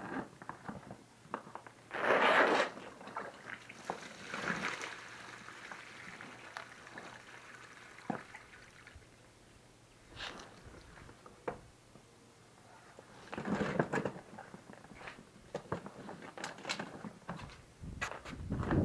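A soft-sided cooler bag being emptied and handled: water poured out of it onto the ground, with rustling of the bag and scattered clicks from its straps and buckles. Several short, loud spells of noise, the loudest about two seconds in.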